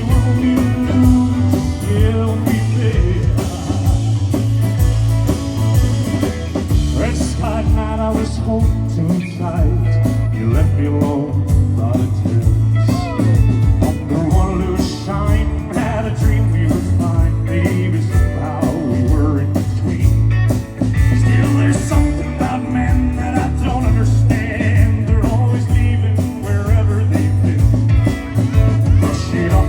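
Live country-rock band playing, with guitar to the fore over a steady bass line.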